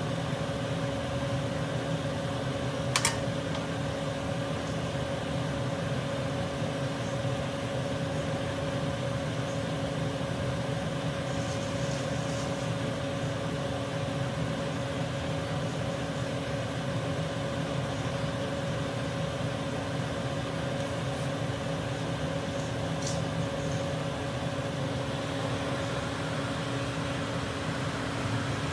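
Steady electric hum of a kitchen exhaust fan, a low drone with a constant tone. A single sharp clink about three seconds in.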